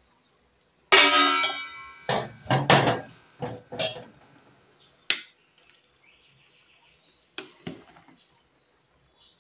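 A stainless steel pot lid clangs and rings as it is lifted off a large aluminium cooking pot, followed by a run of sharp metal knocks and clatters. Near the end a metal ladle taps twice against the pot while stirring.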